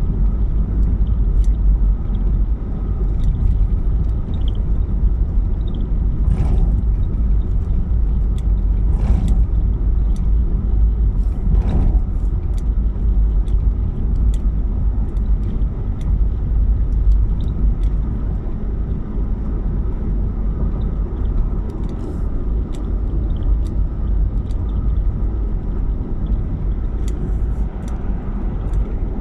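Car driving along, a steady low rumble of engine and road noise, with a few faint ticks.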